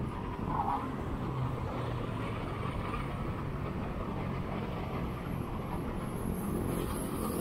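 Steady wind noise on a chest-mounted action camera's microphone as a bicycle rides along a road, mixed with car traffic running alongside.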